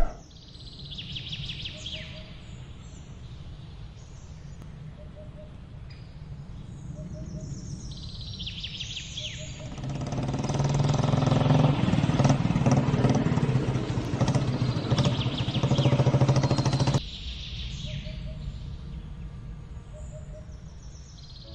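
Outdoor ambience of birds chirping over the steady hum of a motor engine; the engine grows louder for several seconds in the middle and then cuts off abruptly.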